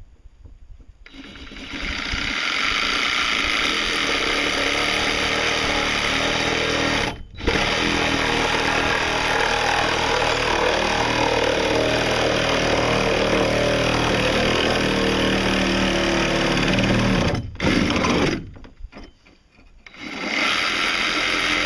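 DeWalt reciprocating saw cutting into a boat hull. It starts about a second in and runs in long stretches, with a brief stop about seven seconds in. It stops again after about seventeen seconds, gives a short burst, then starts up again near the end.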